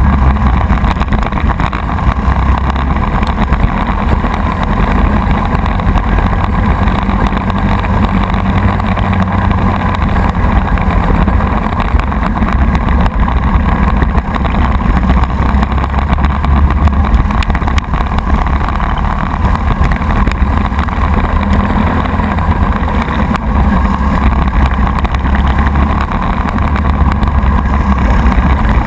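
Racing kart's Briggs & Stratton Animal single-cylinder four-stroke engine running hard, heard up close from on board the kart, with wind on the microphone. The engine note holds steady, shifting only slightly.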